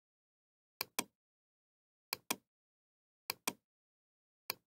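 Computer mouse double-clicked four times, each a pair of sharp clicks about a fifth of a second apart, with a little over a second between pairs and silence in between.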